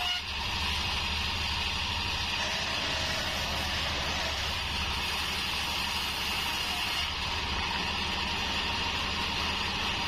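Vertical bandsaw mill running steadily as it saws a wadang (bayur) log into slabs: an even machine drone with the hiss of the blade in the wood.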